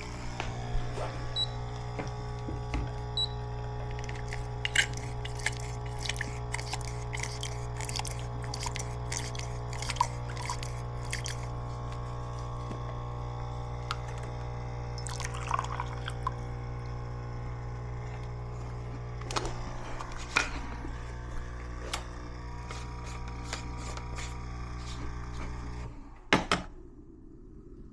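Electric kettle heating water, a steady hum with scattered ticks and light clinks, then cutting off with a click about 26 seconds in as it switches off.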